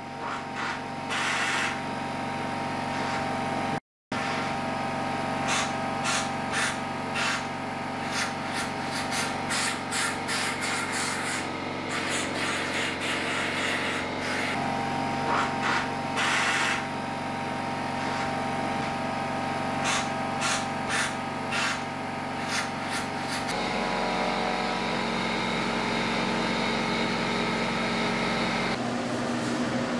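Repeated short hissing blasts of compressed air from an air nozzle, blowing silica dust out of drilled anchor holes in concrete. A machine hums steadily underneath, and its tone shifts a little past two-thirds of the way through.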